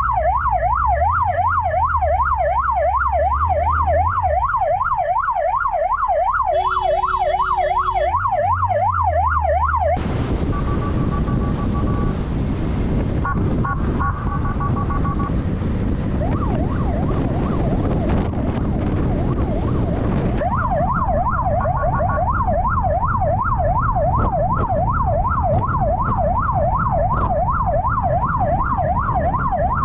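Police motorcycle siren sounding a fast yelp, its pitch sweeping up and down several times a second. About ten seconds in it stops and the motorcycle's engine and wind rush carry on alone for about ten seconds, then the siren yelp starts again.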